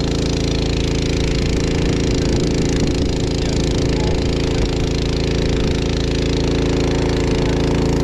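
An engine running steadily at an even pitch, with no change in speed.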